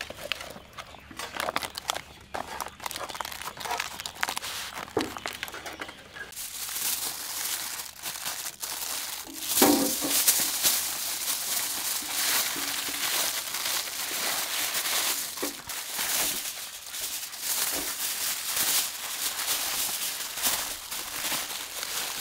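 Banana leaf rustling as it is folded around a parcel, then from about six seconds in aluminium foil crinkling continuously as it is torn off and pressed tightly around the banana-leaf parcel, loudest about ten seconds in.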